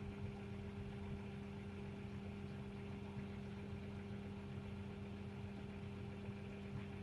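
Diesel engine of a farm machine running at a steady speed, a constant even drone with no change in pitch.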